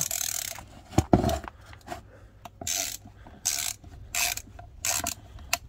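A ratchet driver with a T25 Torx bit clicking in several short bursts as it undoes the screws holding the ABS control module to the pump.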